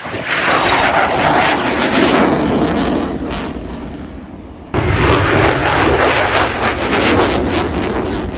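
Jet engine roaring very loudly as it goes past, easing off after a few seconds, then cutting back in suddenly at full loudness just under five seconds in.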